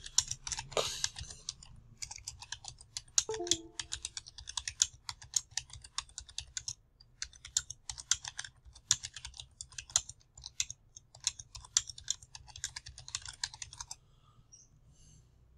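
Typing on a computer keyboard: quick runs of key clicks with short pauses between words, stopping near the end.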